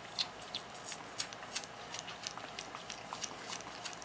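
A bottle-fed fawn suckling on a baby-bottle nipple: irregular wet smacking clicks, several a second, with the sharpest just after the start and about a second in.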